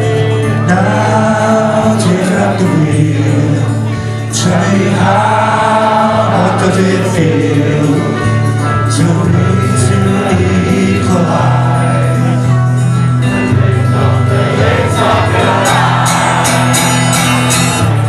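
Live acoustic band music: a strummed acoustic guitar and a trumpet playing the melody over a steady bass line, with voices singing along.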